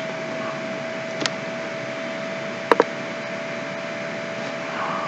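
Steady background hiss with a constant faint hum tone, broken by a soft click about a second in and a sharp double click near three seconds in: a computer mouse button pressed and released.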